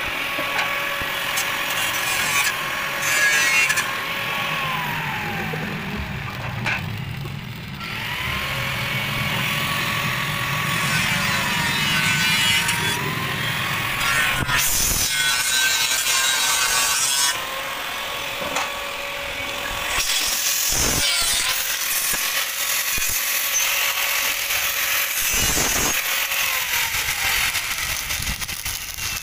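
Stick (arc) welding along a seam on a sheet-steel tank: the electrode's arc gives a steady crackle, which drops off briefly twice.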